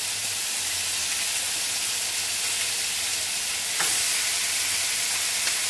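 Lamb chops searing fat side down in a pan on high heat: a steady sizzle, with a single light click about four seconds in.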